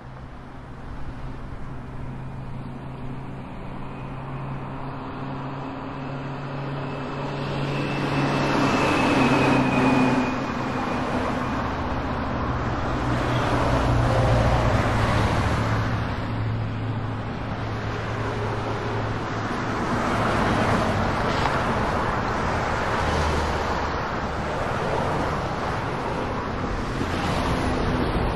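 Steady mechanical engine rumble with a low hum, swelling louder twice, about a third of the way in and again around halfway, with a faint high whine falling slightly in pitch in the first third.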